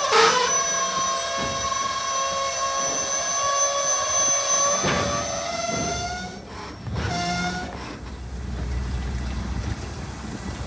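Locomotive air horn sounding a long chord of several notes that stops about six seconds in, then a short blast a second later. After that comes the low rumble of the train going by.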